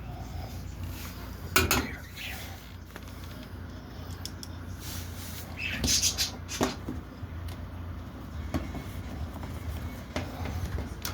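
Sharp knocks and clatter of washing machine panels and parts being handled, with three louder knocks (about 1.6 s in, and two around 6 s in), over a steady low hum.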